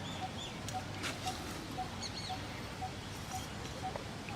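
Outdoor ambience: birds chirping now and then over a steady hiss, with a short even note repeated about twice a second.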